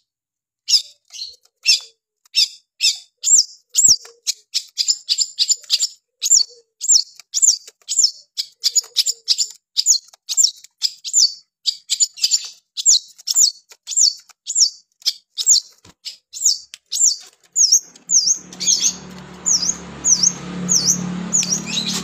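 Long-tailed shrike (pentet) calling without pause: a fast run of short, sharp, high notes, about two to three a second. In the last few seconds a low steady hum comes in underneath.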